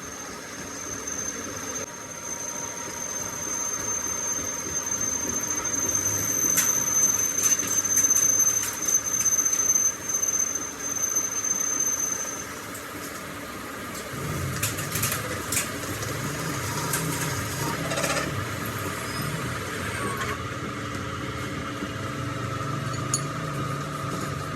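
Machine tool cutting steel: a steady high-pitched squeal of the cutter for about twelve seconds, with rattling clicks mixed in, then the squeal stops and a lower machine hum with a wavering rumble carries on.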